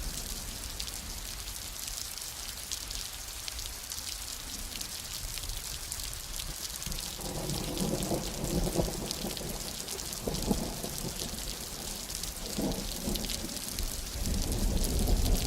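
Steady rain hissing, with thunder rolling and crackling in from about halfway through and a heavier rumble building near the end.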